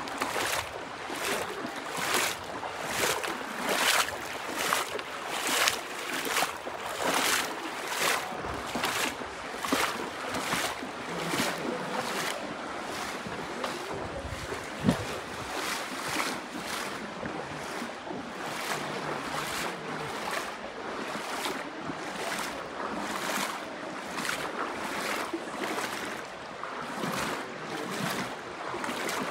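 Steps wading through the shallow Virgin River, a splash about twice a second over the steady rush of the flowing water.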